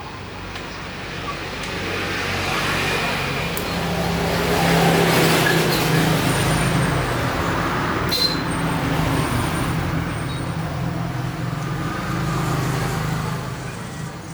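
A motor vehicle passing by, its engine and road noise swelling to a peak about five seconds in, then slowly fading.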